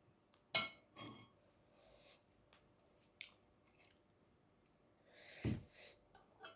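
Close-up eating sounds: chewing and mouth clicks, a few sharp ones near the start and a heavier low thump about five and a half seconds in.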